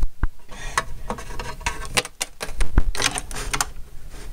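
Hard plastic toys clicking and clattering as they are handled and moved about, in quick irregular taps.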